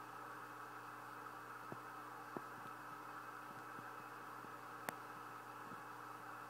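Faint steady hum and hiss, with three small clicks, the sharpest about five seconds in.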